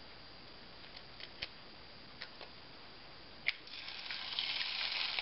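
A few faint taps, then a sharp crack about three and a half seconds in as a large egg's shell is broken, followed at once by sizzling that builds as the egg drops onto crumbled corn chips in the hot skillet.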